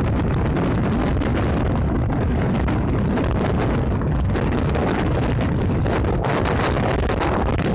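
Strong wind buffeting the microphone aboard a sailboat under way in choppy water: a loud, steady rumble.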